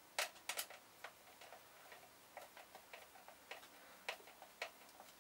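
Screwdriver turning small stainless steel screws into a plastic air-intake snorkel, giving faint irregular clicks, a few sharper ones in the first second and lighter ones scattered after.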